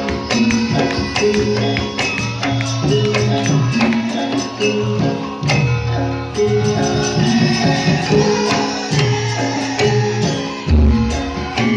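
Live ensemble music: steady drum strokes and a jingling percussion beat under sustained melodic notes.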